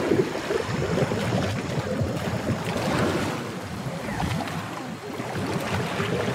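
River water bubbling and churning in irregular gurgling surges as an Asian elephant blows air out through her submerged trunk, pushing away suspended sediment and dead leaves.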